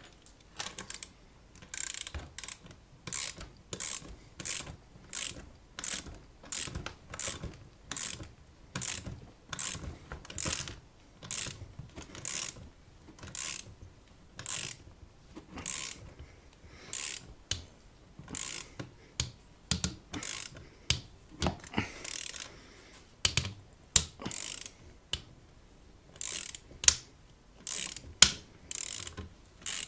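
Ratchet wrench clicking in short repeated strokes, about two a second, as it turns the screw of a chassis punch to cut an 18.6 mm tube-socket hole through 1.5 mm stainless steel sheet. A few sharper clicks stand out later on.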